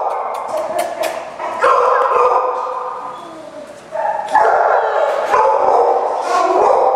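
Several dogs barking and yipping at once in shelter kennels, the calls overlapping. The noise fades to a lull about two and a half seconds in, then breaks out loudly again at about four seconds.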